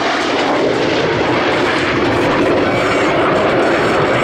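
Lockheed CF-104D Starfighter's J79 turbojet running loud and steady as the jet taxis away, a continuous rushing jet noise.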